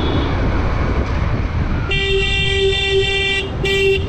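A vehicle horn honking: one long steady blast, then a short second toot after a brief gap, over the steady rumble of road and engine noise.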